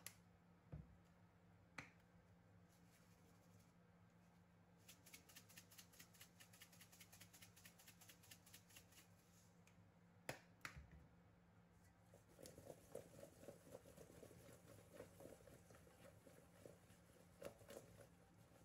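Faint kitchen handling sounds over a low steady hum. There are a few light clicks, a quick run of soft ticks, and then, in the second half, a soft irregular rattling of cubed sweet potatoes and onion being tossed in a stainless steel bowl.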